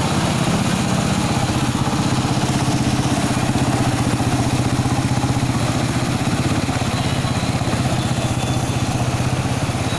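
Motorcycle engine running steadily at low speed while riding through floodwater, with a steady wash of water noise over it.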